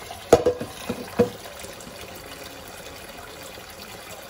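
Kitchen tap running steadily into a stainless steel sink, with a few sharp clanks of a stainless steel saucepan knocking against the sink in the first second or so as it is rinsed.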